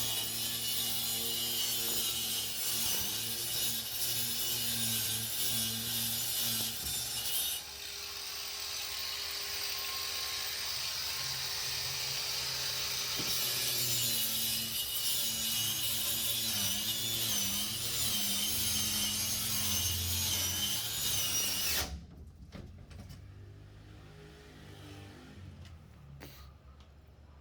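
Electric power saw cutting phenolic-faced plywood (crocodile board), its motor running steadily under load, then stopping abruptly about three-quarters of the way through.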